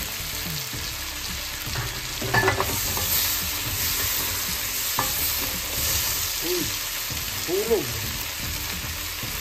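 Vegetables (long beans, pumpkin and tomato) sizzling in oil in a nonstick wok while a wooden spatula stirs and scrapes them, with a few sharp knocks of the spatula a couple of seconds in.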